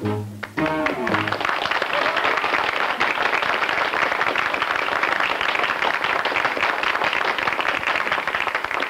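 A dance band's closing chord, then audience applause from about a second in: a dense, steady clapping that lasts to the end.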